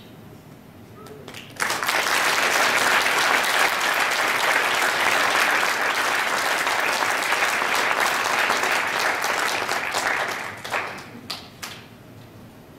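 Audience applauding: the clapping starts suddenly about a second and a half in, runs for about nine seconds, then tapers off into a few last scattered claps.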